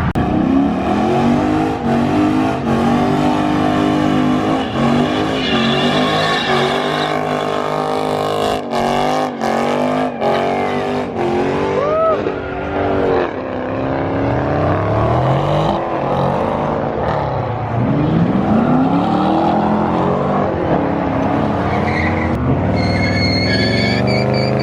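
Car engines revving hard, the pitch climbing and falling again and again, with tyre squeal from burnouts.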